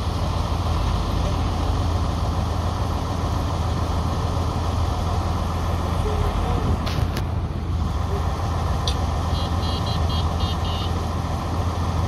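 Diesel engine of a crawler-tracked railway sleeper-laying machine running steadily with a low hum. A couple of clicks come about seven seconds in, and a short run of high, rapid chirps around ten seconds.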